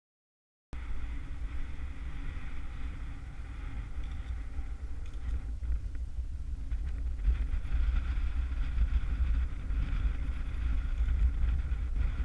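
Wind buffeting the microphone outdoors on a snowfield: a steady, rough low rumble that starts suddenly just under a second in and cuts off abruptly near the end.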